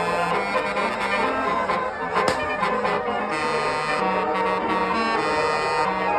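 A bus's basuri, the multi-trumpet musical air horn used on Indonesian buses, playing a melody in the rasping 'ngorok' (snoring) style, its notes stepping up and down several times a second. There is a sharp click about two seconds in.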